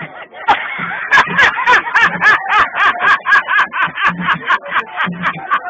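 A man's rapid, rhythmic laughing cries, about five a second, starting about half a second in, over music with a low repeating beat.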